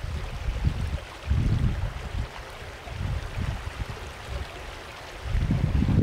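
Wind buffeting the microphone in irregular low rumbling gusts, with a strong gust building near the end, over a steady faint hiss of outdoor ambience.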